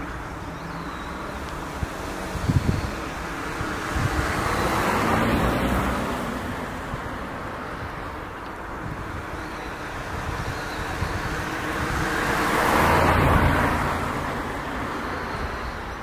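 Road traffic: a steady low rumble, with two vehicles passing, each swelling and fading over a few seconds, about five seconds in and again around thirteen seconds. A few short low thumps about two and a half seconds in.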